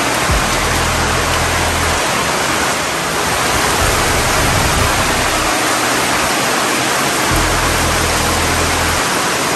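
Steady, heavy rain falling, a dense even hiss, with background music carrying low notes that come and go.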